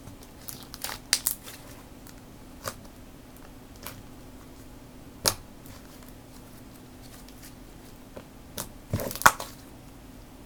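Slime being squished and played with by hand, giving scattered small crackles and clicks. The sharpest come a little after a second in, at about five seconds and near the end, over a faint steady hum.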